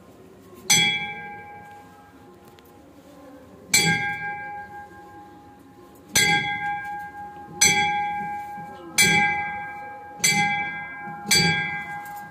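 Temple bell struck seven times during puja, each strike ringing out with a clear tone and fading. The strikes come closer together toward the end.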